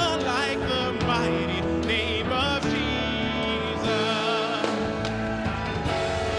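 Live worship band playing a contemporary worship song, with wavering sung or lead melody lines over sustained band chords between the lyric lines.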